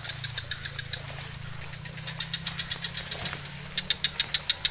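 Evening insects in tall grass: a steady high-pitched drone with a rapid chirping trill, about nine chirps a second, that grows loudest near the end. A low steady hum sits underneath.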